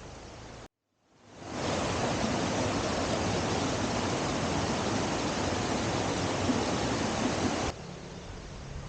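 Rushing water of a mountain stream, a loud, dense, even hiss that fades in about a second in after a brief dropout and cuts off abruptly near the end, giving way to a quieter outdoor hiss.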